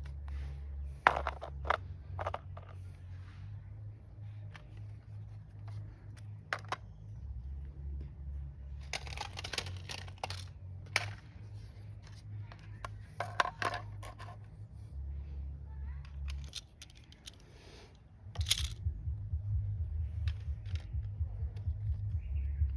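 Plastic toy guns and equipment being handled and set down: scattered clicks, light knocks and rustles over a steady low hum.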